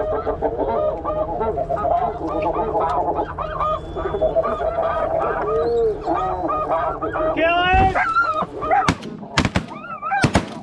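A dense chorus of snow goose calls, many overlapping high honks. About nine seconds in, a quick run of shotgun shots cracks out over the calling.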